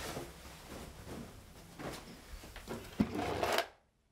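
Quiet rustling of clothing and light handling noise as a jacket is taken off, with a few faint soft knocks; a slightly louder rustle about three seconds in cuts off into silence near the end.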